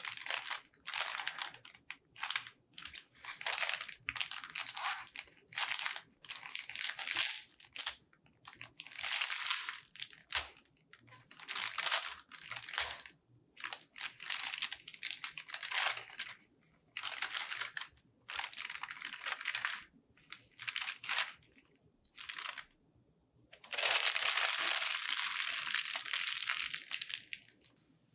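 Plastic mailer bag crinkling and rustling as it is handled and opened, in irregular bursts of a second or two. Near the end there is a longer unbroken rustle of about four seconds.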